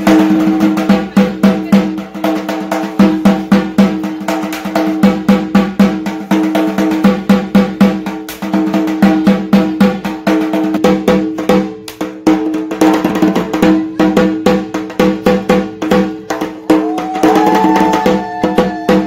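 Fast, continuous ritual drumming on a large barrel drum, played for a Kali puja idol immersion. A steady ringing tone runs under the rapid strokes.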